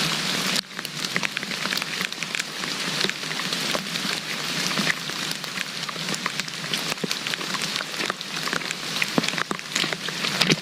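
Steady rain falling, with many small irregular drop impacts ticking close by.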